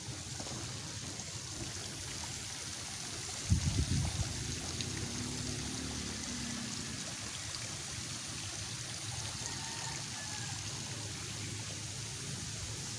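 Steady rushing outdoor noise, with a short cluster of low thumps about three and a half seconds in.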